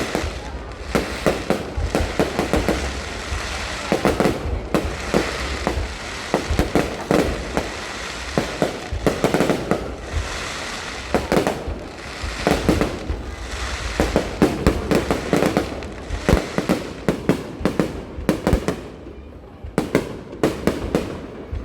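Fireworks going off in a dense, irregular string of sharp bangs and crackles. The bangs ease off briefly near the end, then start again.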